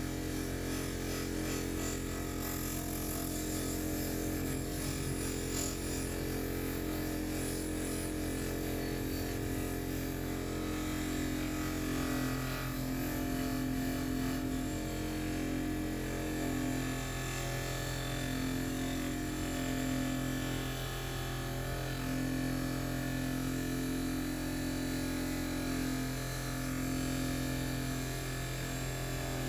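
Electric power tool motor running steadily with a buzzing hum, its pitch shifting slightly about twelve seconds in.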